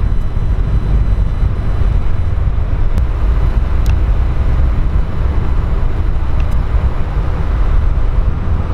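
Jet airliner engine noise: a loud, steady rumble, heaviest in the low end.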